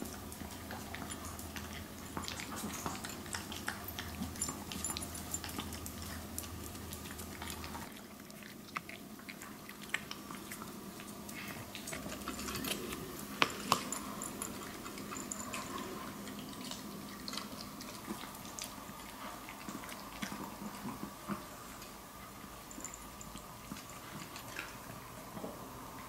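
Maltese dogs eating dry kibble from clear bowls: steady crunching and chewing with many small clicks of kibble and teeth against the bowls, and two sharper clicks a little past halfway.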